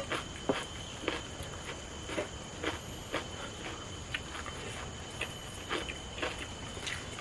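A person eating, with irregular short crunchy chewing sounds about one to two a second, over a steady thin high-pitched whine in the background.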